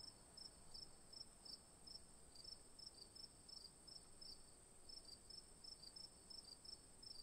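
Near silence, with a faint steady high-pitched tone and faint short high chirps repeating a few times a second.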